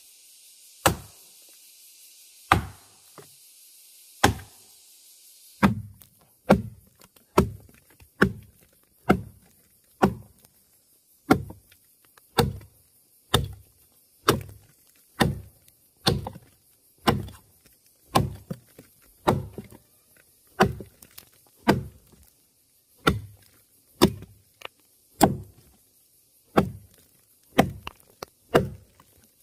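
A tool striking wood, blow after blow: three spaced strikes, then a steady rhythm of a little over one blow a second from about six seconds in.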